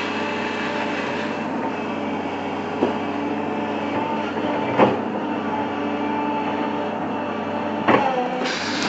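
Bulldozer's diesel engine running steadily, with three sharp metallic clanks, about three, five and eight seconds in.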